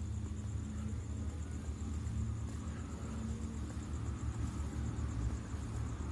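Night ambience: a steady low rumble, with insects trilling in a fast, even, high-pitched pulse throughout.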